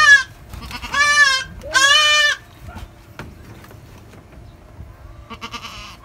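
Kid goat bleating loudly three times in quick succession in the first two and a half seconds, high-pitched calls, with a fainter bleat near the end; the kid is being caught and held for handling.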